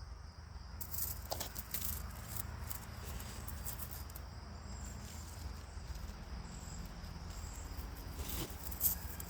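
Birds chirping in short high calls, with scattered sharp clicks and handling noises from close by, the loudest about a second in and just before the end, over a steady low background hum.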